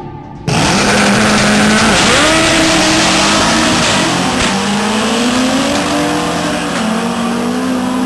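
Two drag-racing cars accelerating away down the strip at full throttle, starting abruptly about half a second in. The engine pitch climbs and drops back several times at the gear changes, and the sound eases a little as they pull away.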